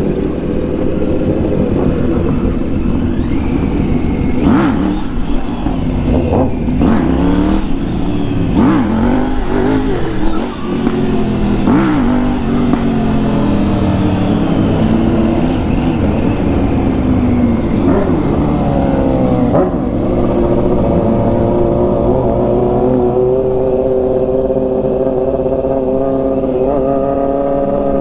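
Loud motorcycle and car engines revving and accelerating, with several sharp cracks from the exhausts in the first half. Then falling notes as they slow, a few quick rising runs, and a steady engine note climbing slowly in pitch.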